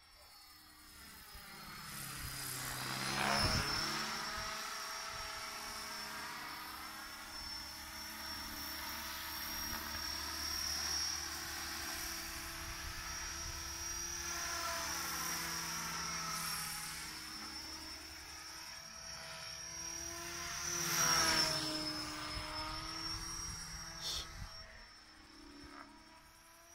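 Thunder Tiger AH-1 Cobra radio-controlled scale helicopter flying, a steady high-pitched whine of its power plant and rotor head. It grows louder over the first few seconds and makes two close passes, about three seconds in and about twenty-one seconds in, where the whine swoops down in pitch as it goes by.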